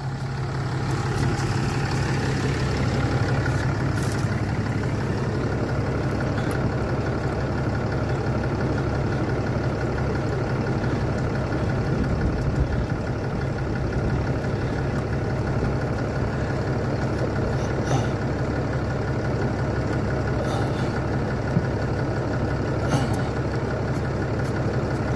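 Engine idling steadily with an even, low hum.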